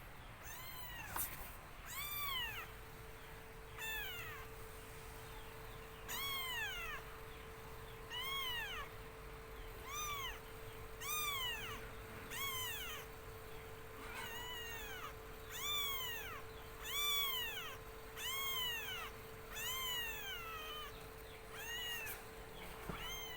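Young kitten crying: a long series of high meows, each one rising and then falling in pitch, roughly one every second or so.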